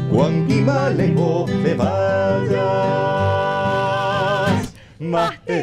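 A man and a woman singing a folk song together over two acoustic guitars, holding the final note with vibrato before the music stops about four and a half seconds in.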